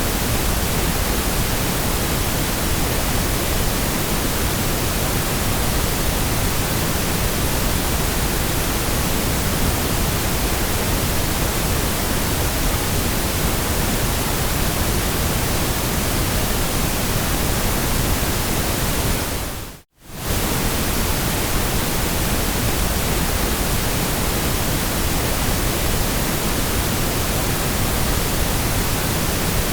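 Steady white noise: an even, unbroken hiss across all pitches. About two-thirds of the way through it fades to near silence for a moment and comes straight back.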